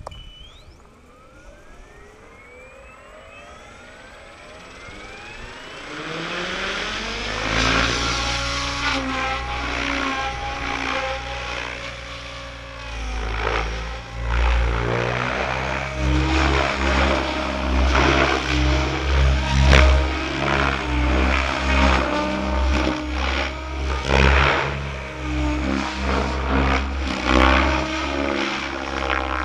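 Goblin 700 radio-controlled helicopter, its electric motor and rotor winding up with a rising whine over the first six seconds, then the rotor's pitched buzz as it hovers and flies, swelling and dipping as it manoeuvres.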